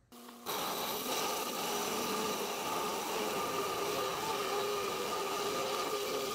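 A Hi-Tech Diamond 4–5 inch lapidary trim saw comes on about half a second in and runs steadily, its diamond blade cutting through a small rock with a steady whine and hiss.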